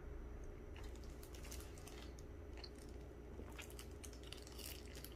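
Faint chewing and crunching with scattered small clicks, thicker in the second half, over a low steady hum: someone eating fried chicken.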